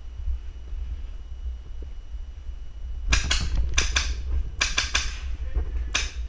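Airsoft gunfire: about seven sharp shots in quick groups of two or three, starting about three seconds in, over a steady low rumble.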